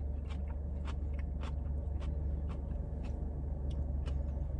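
Chewing a crisp pickle with the mouth closed: short crunchy clicks about two to three a second. A steady low hum runs underneath in the car cabin.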